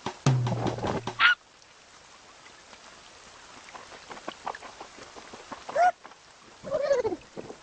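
Cartoon sound effects: a loud burst with a low hum that ends in a quick rising squeak, then a faint hiss, then two short honk-like calls near the end, the first rising in pitch and the second falling.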